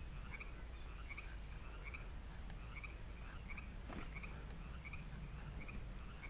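Faint evening chorus of frogs and insects: a short chirping call repeated about twice a second over a steady high-pitched insect hum.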